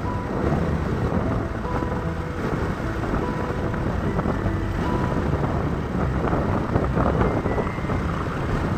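A motorcycle riding at speed along a highway: a steady rush of wind on the microphone over engine and road noise.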